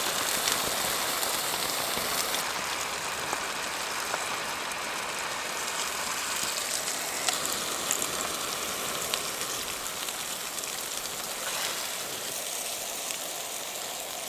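Steady rain drumming on tent fabric in a windy storm, with a few faint clicks.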